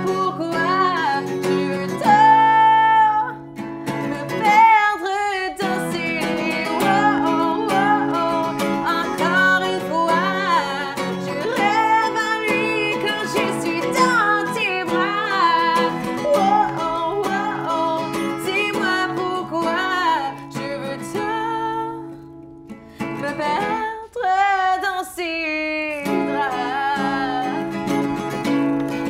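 A woman singing to her own acoustic guitar, a held, wavering melody over strummed chords; the guitar pauses briefly twice while the voice carries on.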